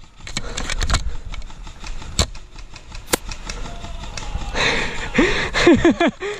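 Airsoft gun shots: sharp single cracks, several in the first second and two clear ones about two and three seconds in. Near the end a louder noisy stretch with a short voice-like cry.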